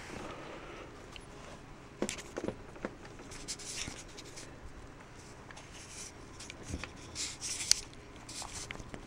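Light clicks and knocks with short bursts of rustling from a pet rabbit moving about its wire cage, a few sharp ticks standing out among the rustles.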